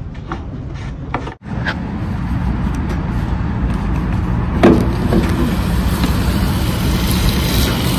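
Diesel fuel gushing from a pump nozzle into a semi-truck's fuel tank, a steady rushing over a low rumble. The sound cuts out briefly about a second and a half in, and there is a single knock about halfway through.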